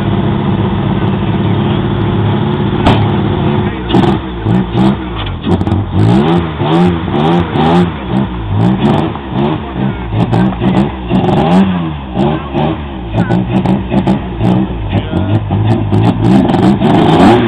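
Alfa Romeo 156 GTA race car's engine idling steadily, then from about four seconds in blipped again and again, each rev rising and falling quickly. A single sharp knock comes about three seconds in.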